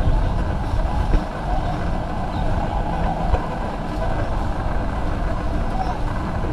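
Busy warehouse-store ambience: a steady rumble with shopping trolleys rolling and rattling over the concrete floor amid a crowd of shoppers, with a few small clicks.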